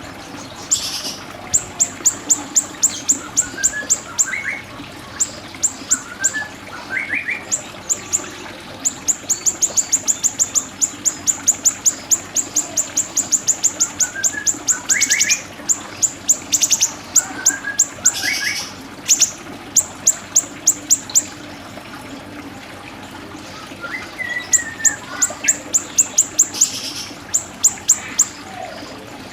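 Siri-siri bird singing: long rapid runs of high, sharp chip notes at about five a second, broken by short pauses, with brief rising whistled phrases between them.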